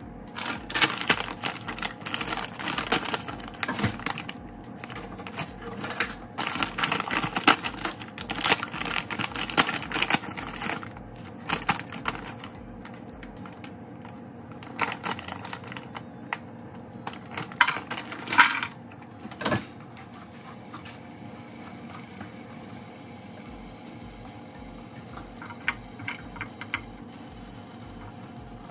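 A plastic food bag crinkling and rustling as it is opened and rummaged through, for about the first ten seconds. Then scattered knocks as frozen breaded morsels are set into a frying pan.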